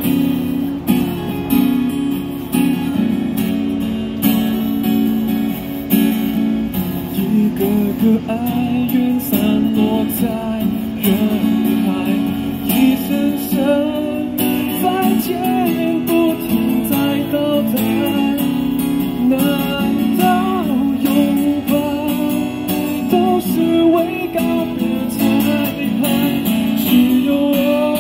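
Acoustic guitar strummed in steady chords, joined several seconds in by a singer's voice through a microphone: a live two-person busking performance of a song.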